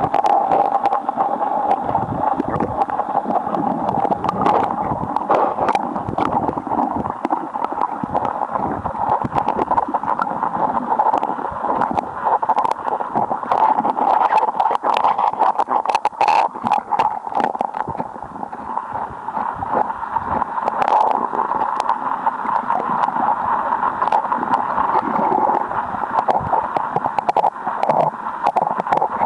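Fast stream current recorded with the camera underwater: a steady, muffled rush of water with many small clicks and knocks scattered through it.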